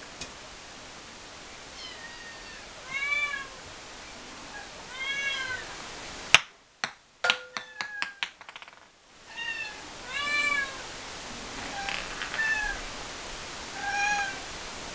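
Cornish Rex kittens meowing, several drawn-out, rising-and-falling meows spread through the stretch. About six seconds in comes a sharp loud click, followed by a couple of seconds of scattered clicks.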